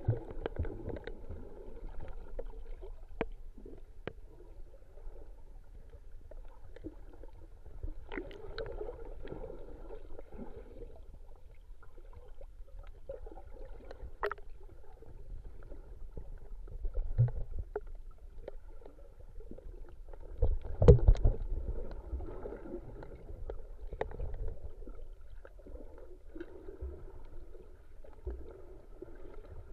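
Muffled underwater sound picked up by an action camera in its waterproof housing while snorkelling: a dull low rumble of moving water with scattered faint clicks and taps. Louder low knocks and thumps come about 17 seconds in and again, the loudest, about 21 seconds in.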